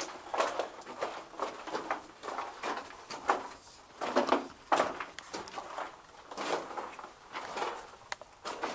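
Footsteps crunching and scuffing on loose rock in a mine tunnel, an uneven step about every second.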